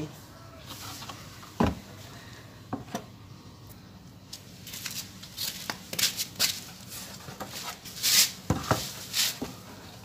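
Handling noises from a plastic front-loading washing machine outer tub being touched and then moved and lifted. There is a sharp knock about one and a half seconds in and a smaller one near three seconds, then a run of scuffs, rustles and knocks through the second half.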